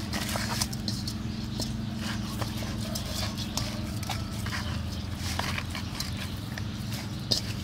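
Hands rubbing salt into dead rats in a wet stainless steel basin: scattered soft clicks, taps and wet handling noises against the metal, over a steady low hum.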